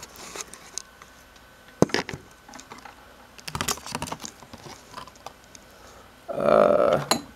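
Camera handling noise as it is set down and moved: scattered clicks and knocks, a sharper click about two seconds in, and a louder noisy burst lasting about a second near the end.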